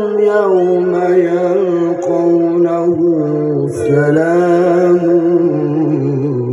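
A male qari's voice over a PA system, holding one long, ornamented melismatic phrase of Quranic recitation (tilawah); the pitch wavers in small turns and slowly sinks, with a brief break about four seconds in.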